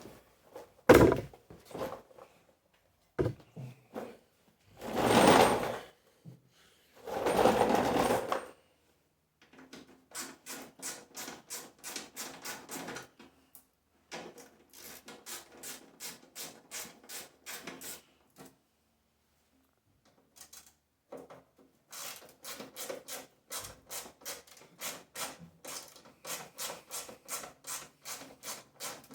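Socket ratchet clicking as it turns fasteners, in runs of even ticks about four a second with short pauses between. Before the ratcheting starts there are a few sharp knocks and two longer scraping rustles.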